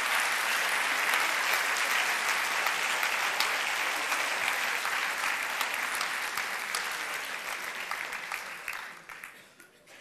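Audience applauding steadily, thinning to a few scattered claps and dying away near the end.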